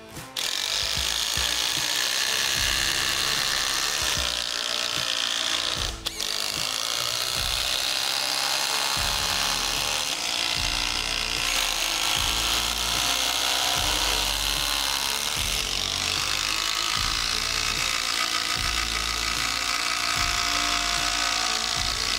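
Two cordless brushless compact impact drivers, a DeWalt and a Milwaukee M18 2850, running together under load as they drive 8-inch structural wood screws into a pressure-treated 4x4. The din drops out briefly about six seconds in, then carries on.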